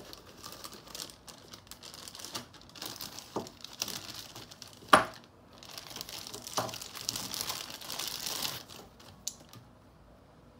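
Plastic zip-lock bags crinkling and rustling as they are handled and opened, with a few light clicks and one sharp knock about halfway through; the rustling dies down near the end.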